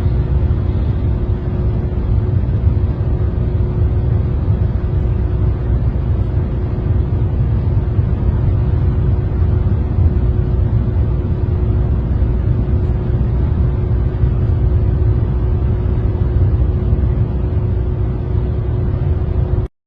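Steady low rumble with a constant hum through it, cutting off suddenly near the end.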